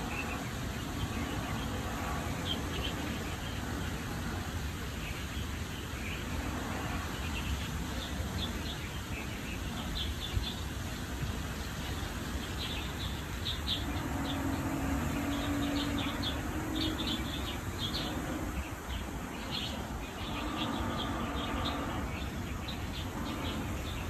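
Short high-pitched chirps, repeated in clusters through the middle, over a steady low rumble; a fainter hum comes and goes twice.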